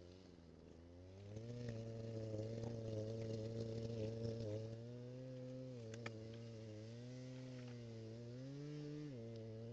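A small engine running steadily, its pitch dipping and rising several times and dropping suddenly near the end.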